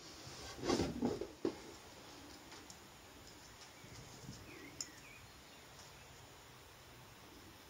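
Craft materials handled on a wooden table: a brief clatter with a couple of knocks about a second in as a glue stick is set down and a glass jar picked up, then faint handling of the paper wing being pressed onto the jar.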